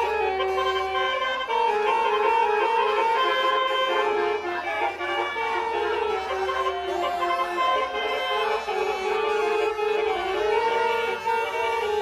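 Music: a reedy melody of long held notes stepping from pitch to pitch over a low bass line.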